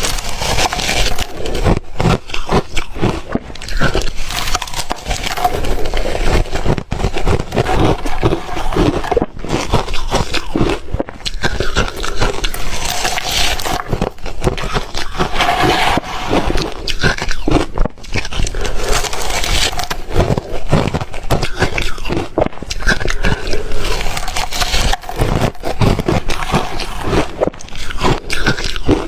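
Ice being bitten and chewed: a loud, unbroken run of crunching and crackling as pieces of reshaved freezer ice break between the teeth.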